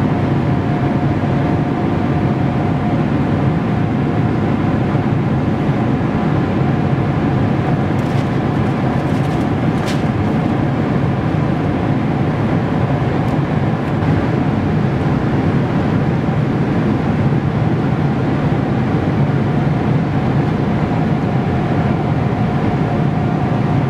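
Steady in-flight cabin noise of a Boeing 777-300ER airliner: the even rush of airflow and the hum of its twin GE90 jet engines heard from a seat inside the cabin, with a faint steady tone running under it.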